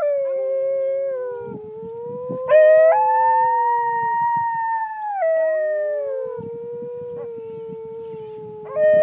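Several dingoes howling together in a chorus of long, overlapping howls at different pitches. A louder, higher howl joins about two and a half seconds in.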